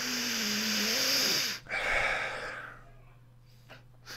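A man's long, audible breath with a faint throaty tone, followed by a second, shorter breath.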